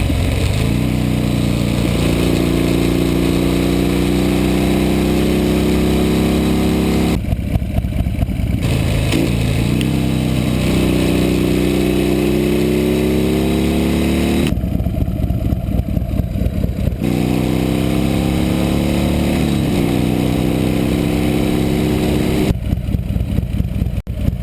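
1998 Buell S1 Lightning's 1203cc air/oil-cooled 45-degree V-twin running through a Supertrapp exhaust, its note climbing slowly in pitch over several seconds, three times, each climb broken off by a short drop.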